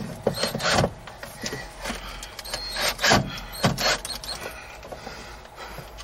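Cordless drill and self-tapping screw being set against the car's sheet-metal floor pan to start the screw: a series of short knocks, clicks and scrapes, the loudest about three seconds in and again just after.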